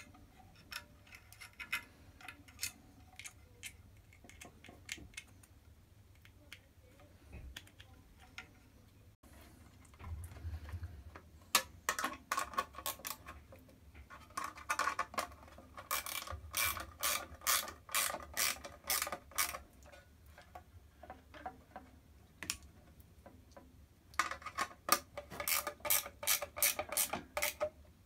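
Ratchet spanner clicking in fast runs while tightening a fastener. A few scattered clicks come first, then two long spells of rapid ratcheting, one through the middle and one near the end.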